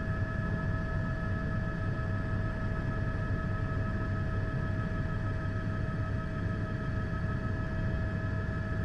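Steady helicopter cabin noise: a dense low rumble with a constant whine made of several steady tones.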